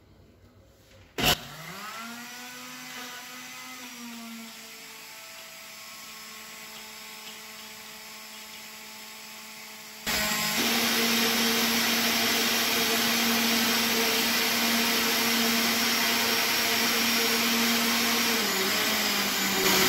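Electric countertop jar blender switched on with a click about a second in, its motor whining up to a steady speed as it chops watermelon chunks. About halfway through it becomes much louder and rougher as the speed knob is turned up, running steadily while the fruit is blended into juice.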